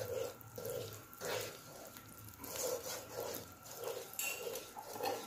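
Wooden spatula stirring and scraping a thick mixture of flour and gram flour roasting in ghee in a non-stick pan, about two strokes a second, with a faint sizzle.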